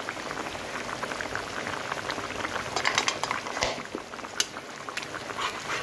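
Thin fish curry with elephant apple bubbling at a rolling boil in a pan: a steady crackling bubble hiss, with a few sharper clicks in the second half.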